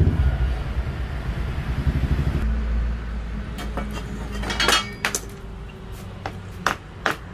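A hammer tapping plastic corner connectors into a mosquito-net door frame profile: scattered clicks and clinks, then light, evenly spaced taps in the last second or so. A low rumble in the first couple of seconds fades out before the tapping starts.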